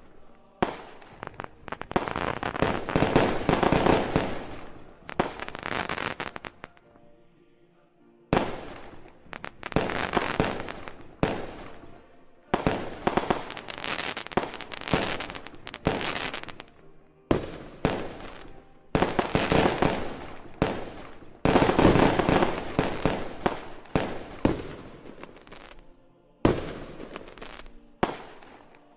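Aerial fireworks shells bursting one after another, each sharp bang trailing off into fading crackle, in loud clusters with a short lull about seven seconds in.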